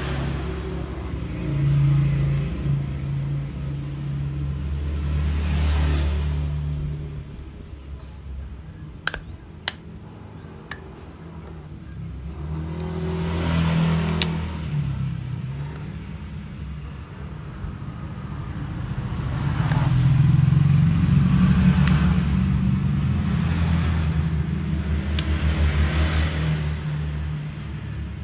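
Low rumble of passing road traffic, swelling and fading several times. A few sharp clicks about a third of the way in come from the plastic clips of a phone's back housing snapping free as it is pried off with a plastic pick.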